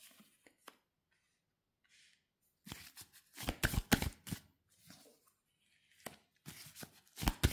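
Tarot cards being drawn from a deck and laid down on a cloth-covered table: after a quiet stretch, a cluster of short card flicks and slaps about three seconds in and another near the end.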